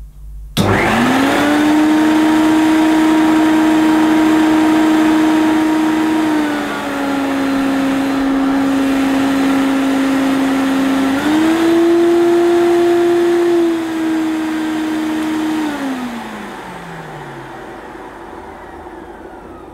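A Hoover Turbopower 2 Autosense upright vacuum cleaner's motor switched on, starting with a sudden whine that settles into a steady run. About six seconds in the pitch steps down to a lower power setting, and about eleven seconds in it jumps to a higher one, as the Autosense and boost power levels change. It is then switched off and winds down in a falling whine, the motor sounding as it should.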